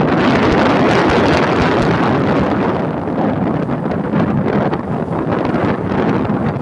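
Wind buffeting the microphone in a steady, loud rush.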